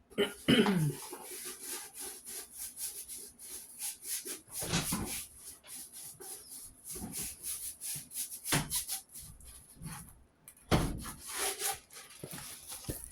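Rustling, crinkling and rubbing as a rolled diamond-painting canvas and its plastic cover sheet are handled and unrolled, with a few louder bumps about five, eight and eleven seconds in.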